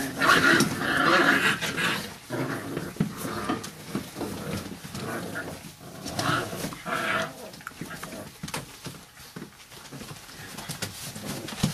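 Five-week-old bandog puppies calling and yelping while they play, loudest in the first two seconds and again around six seconds in, with short knocks and scrapes from their scrambling throughout.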